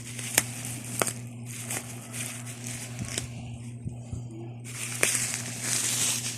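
Packaging being handled while a water bottle is unboxed: a few sharp clicks, then louder crinkling and rustling over the last second and a half.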